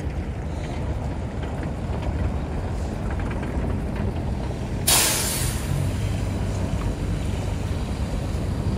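City bus passing close by, with a sudden loud hiss of air from its air brakes about five seconds in that fades within a second. Steady low traffic rumble runs underneath.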